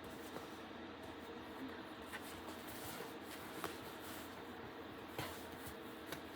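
Faint handling noise over steady room hiss: a few soft, scattered clicks and rustles as skeins of yarn are picked up and put down.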